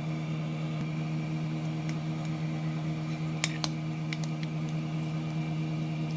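Steady hum of a kitchen appliance's motor running, with two light clicks about three and a half seconds in.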